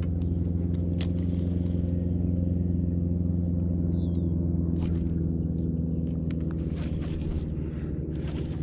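Boat outboard motor running steadily at low speed, a deep even hum, with a few light knocks and a short falling whistle about four seconds in.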